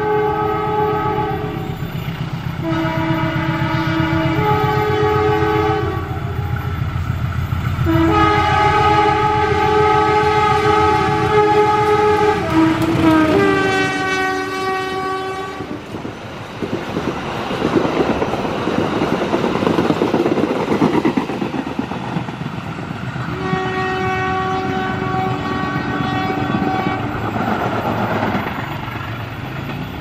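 Indonesian GE diesel-electric locomotive's multi-note horn sounding several long blasts, the 'semboyan 35' long-horn warning signal, over the rumble of its engine as it approaches. The horn's pitch drops as the locomotive passes about halfway through. The passenger coaches then rush by with the clickety-clack of wheels on the rails, and the horn sounds one more long blast from farther off near the end.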